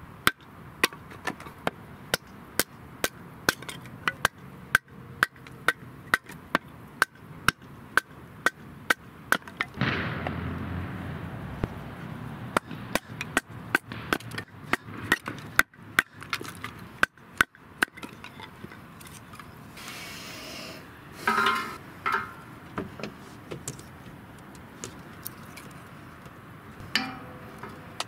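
Batoning kindling: a wooden block knocking on the back of a knife blade driven through a softwood board, about two sharp knocks a second, with a longer, louder noise about ten seconds in. Later only a few scattered knocks and clatters of the split sticks.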